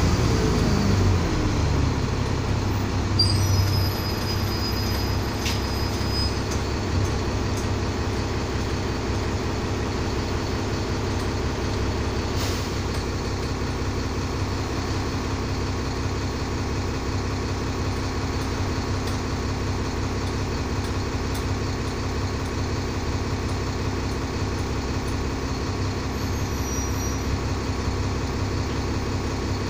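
Diesel engine of an Alexander ALX400 double-decker bus, heard from the lower deck. Its note falls over the first couple of seconds and then settles into a steady idle. A faint high whistle sounds briefly about three seconds in, and a single click comes about twelve seconds in.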